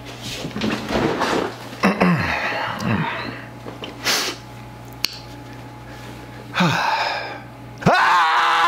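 A man's wordless vocal sounds: several short gasps and exclamations that fall in pitch, then a louder high-pitched excited shout near the end, over a steady low hum.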